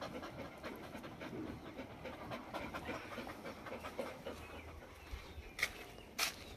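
Dog panting quickly and steadily, a rapid even run of short breaths, with two sharp clicks near the end.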